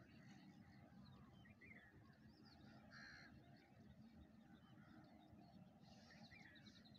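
Faint crow caws over a background of other birds chirping. One caw stands out about three seconds in and another near the end.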